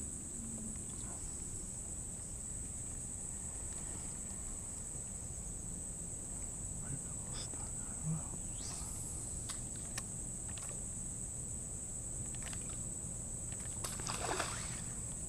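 Insects buzzing steadily at one high pitch over a low rumble, with a few faint clicks and a short rush of noise near the end.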